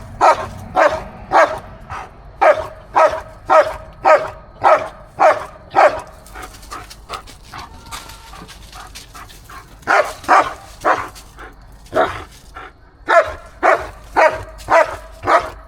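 Dog barking in quick repeated barks, about two a second, stopping for a few seconds midway and then starting again, at a hen that is squaring up to it.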